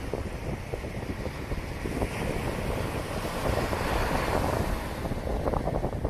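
Small sea waves breaking on a beach and washing up the shore as foam, with wind buffeting the microphone. The surf grows louder about halfway through and fizzes near the end as the wash runs up the sand.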